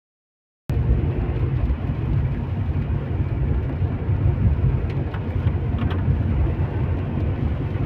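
Car cabin noise while driving at speed: a steady low rumble of tyres, wind and engine, with a few faint ticks.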